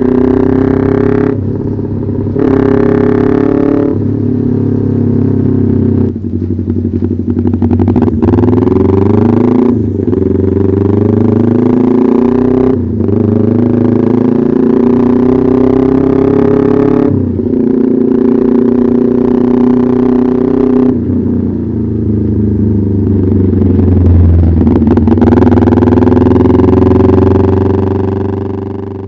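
Kawasaki Ninja 250R's parallel-twin engine running loud through an SC Project aftermarket exhaust. Its pitch climbs under throttle again and again, with short breaks between the climbs, and the sound fades out near the end.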